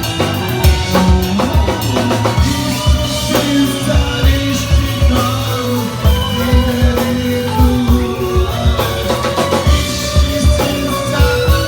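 Rock music played on drum kit and guitar, with a steady kick-drum beat under a held melody line.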